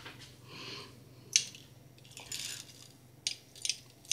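Light kitchen handling sounds: a few soft clicks and clinks of utensils and containers, with a soft rustle, over a faint steady hum.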